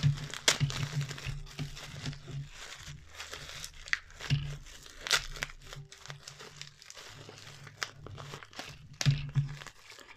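Plastic bubble wrap crinkling and crackling in irregular bursts as hands unwrap a small diecast toy car from it.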